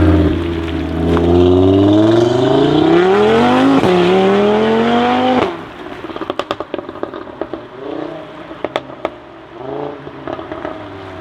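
Audi RS3 8V's tuned turbocharged five-cylinder, fitted with an Iroz downpipe, accelerating with its revs climbing. There is a quick gear shift just before four seconds in, then the revs climb again. About halfway through the throttle closes, and the exhaust crackles and pops on the overrun while the engine sound drops away.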